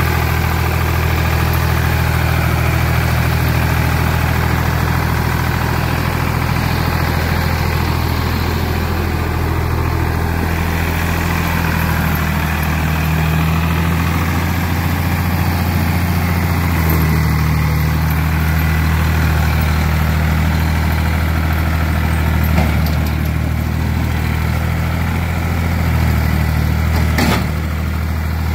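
Ford 3000 tractor's three-cylinder engine running steadily with a low, even hum, its pitch shifting a little a few times as it is driven.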